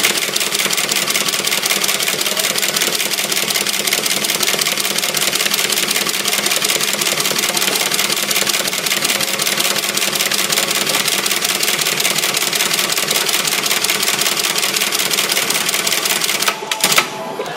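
Automatic brush tufting machine running, a rapid, even mechanical clatter as it punches bristle tufts one after another into a round toilet-brush head. It stops about a second before the end.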